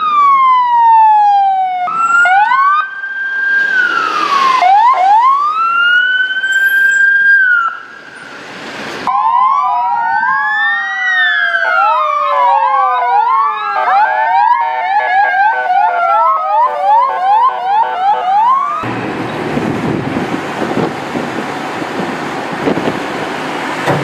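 Emergency-vehicle sirens on gendarmerie vans and cars. First one siren wails in slow rises and falls, then several sirens overlap, one with a fast yelp. About nineteen seconds in the sirens give way to steady engine and road noise inside a moving vehicle.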